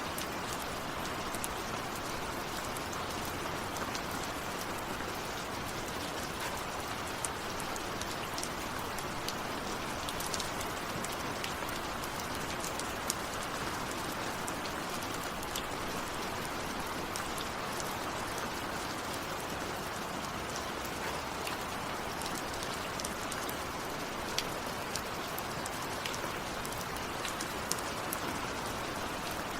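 Steady rainfall: an even hiss of rain, with scattered individual drops tapping sharply in among it.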